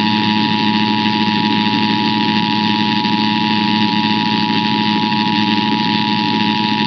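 Emergency Alert System attention signal: the steady two-tone alarm, held unchanged, over a hiss and low hum from the received broadcast.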